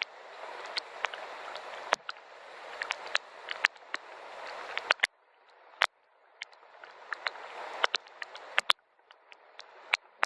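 Soft rain: a hiss of falling rain with many sharp, close drips tapping on a surface. The hiss swells and then cuts off suddenly about every three seconds.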